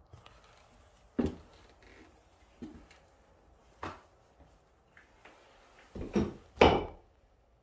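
A handful of irregular knocks and clunks, the loudest a close pair about six to seven seconds in.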